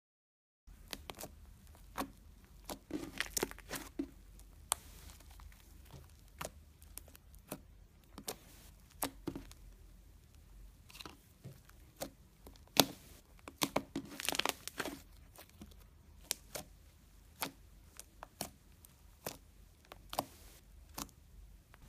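Thick, creamy slime squeezed and poked by fingers, giving irregular sticky pops and crackles that start just under a second in, with the busiest run of pops about two-thirds of the way through.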